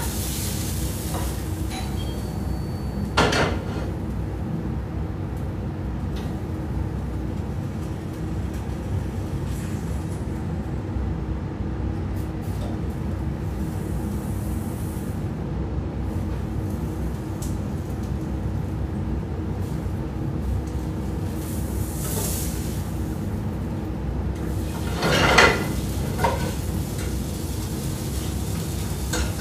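Food frying in a pan on a gas stove, a steady noise over a low hum, with a utensil knocking against the pan about three seconds in and again near the end.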